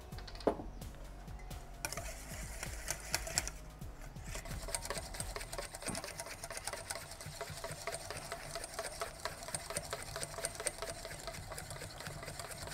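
Wire balloon whisk beating egg yolk and oil in a stainless steel bowl, the wires clicking and scraping against the metal in a fast, even rhythm that settles in about four seconds in: mayonnaise being emulsified.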